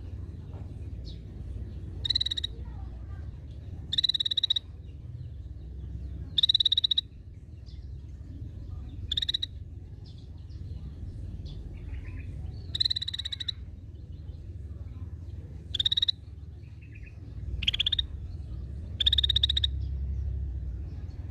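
Cucak bersisik (scaly-breasted bulbul) giving short, rapidly pulsed calls, about nine of them, each under a second long and a few seconds apart. A steady low rumble runs beneath them.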